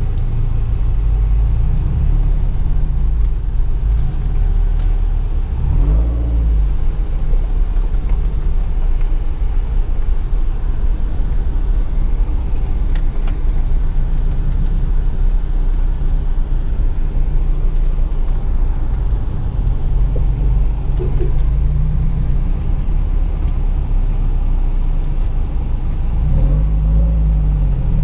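Engine and tyre noise of a 4x4 SUV heard from inside its cabin while driving slowly over a rough dirt track: a steady low rumble. The engine revs up and back down briefly about six seconds in and again near the end.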